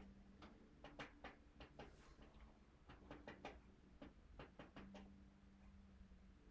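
Near silence: a faint low hum with a scattering of faint, irregular clicks.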